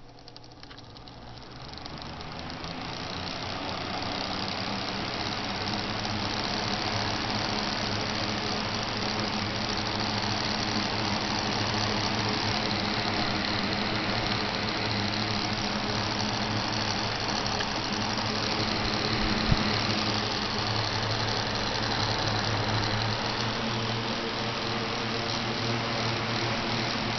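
Mid-1990s two-speed Holmes box fan starting up and running: a motor hum and whoosh of air that build over the first few seconds as the blades spin up, then hold steady.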